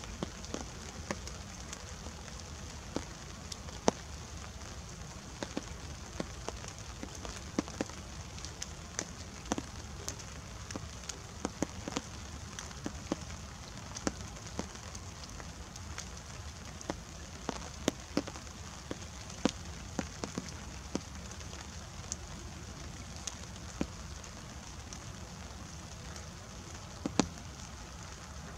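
Light rain with a steady patter, and drops tapping close by at irregular moments, a few a second.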